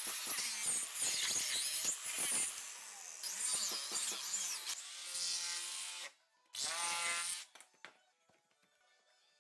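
Handheld power tool buzzing in runs while cutting, stopping about seven and a half seconds in.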